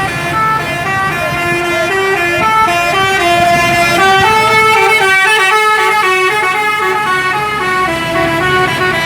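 Bus telolet horn, a multi-tone musical air horn, playing a quick tune of short notes that step up and down in pitch.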